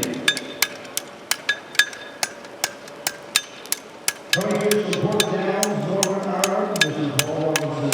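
Several blacksmiths' hammers striking horseshoes on steel anvils, sharp ringing blows at several a second in an uneven, overlapping rhythm. A steady low drone joins about four seconds in.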